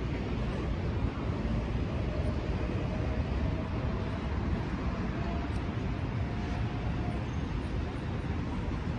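Steady city traffic noise from cars and other vehicles on a wide road intersection, with no single vehicle standing out.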